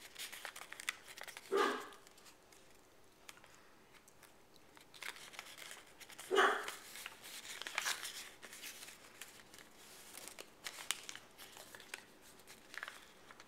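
Origami paper being handled, pinched and creased on a wooden table, making faint rustles and small ticks. Two short, sharp, louder sounds stand out about a second and a half in and again about five seconds later, and a fainter one comes near the end.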